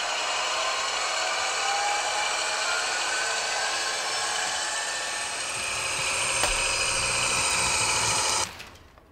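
ESU H0 class 216 model diesel locomotive running with a train: motor and gear whine and wheels rolling on the track, mixed with the sound decoder's diesel engine sound from its small speaker, several tones gliding up and down in pitch. The sound cuts off suddenly near the end.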